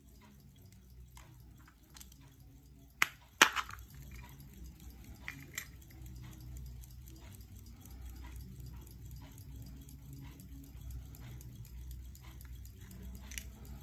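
Westclox Pocket Ben pocket watch handled in the hand while its case back is opened: two sharp metallic clicks about three seconds in, fainter clicks later, over a low rubbing of fingers on the case.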